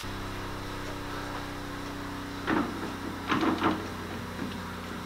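Workshop machine motor starting up and running with a steady hum, with two brief louder noises about two and a half and three and a half seconds in.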